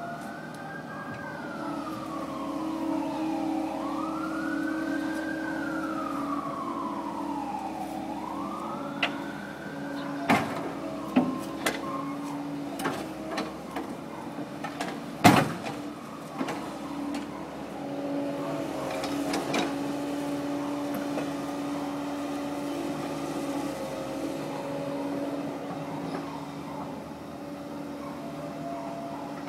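Kobelco SK135SR excavator's diesel engine and hydraulics running steadily while it digs, with a string of sharp knocks from the bucket working in the steel trench box, the loudest about fifteen seconds in. For the first ten seconds a siren wails up and down behind it.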